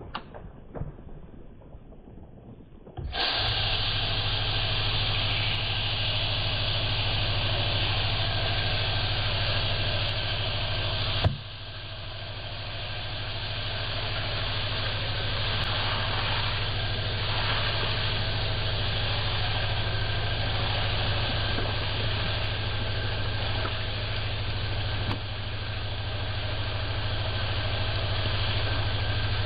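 A machine motor starts about three seconds in and runs steadily with a low hum and a loud rushing whir, with a brief click and a dip in level about eleven seconds in.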